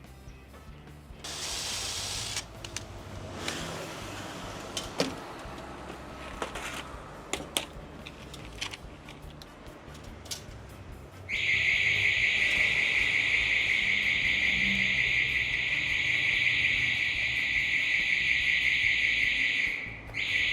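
Newly installed intruder-alarm siren going off during a test: a loud, shrill, steady tone starts about eleven seconds in, sounds for about nine seconds, cuts off, then gives two short blasts. Scattered light clicks and knocks come before it.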